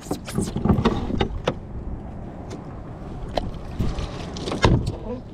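Irregular knocks, clicks and thumps of a landing net and gear against a plastic kayak hull, with some splashing, as a hooked white bass is netted alongside; the loudest thump comes a little before the end.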